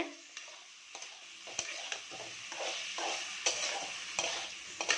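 A flat metal spatula stirring pieces of Bombay duck (lote fish) through frying masala in an aluminium kadai, scraping and knocking against the pan now and then over a steady sizzle of hot oil.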